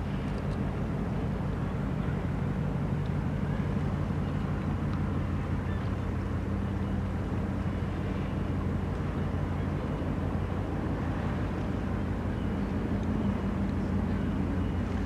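Steady low drone of a large ship's engines and machinery, a deep hum with several low tones that holds even throughout.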